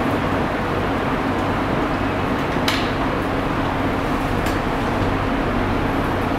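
Steady room noise: an even hiss over a low mechanical hum, like a running fan. Two faint short taps of a marker on the whiteboard, about two and a half and four and a half seconds in.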